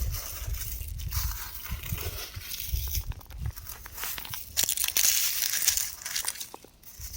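Rock crumbling apart: an uneven run of crunching and crackling with small clicks, swelling loudest about five seconds in over a low rumble.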